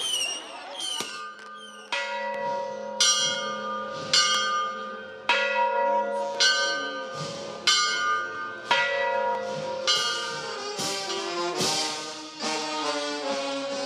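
A church bell struck steadily about once a second, each stroke ringing on into the next. Near the end a brass band of trombones and trumpets starts playing.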